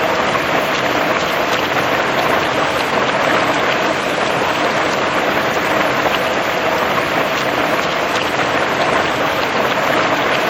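Steady heavy rain falling on a hard surface, a dense continuous patter with many fine individual drop ticks.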